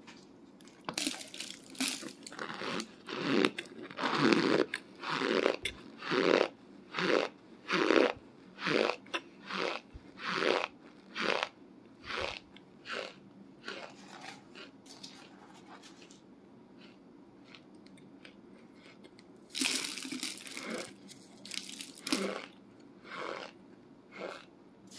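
Chunks of dry cornstarch being crunched while eaten, in an even run of crunchy chews about one and a half a second, which stops about two-thirds of the way in and starts again for a few more chews near the end.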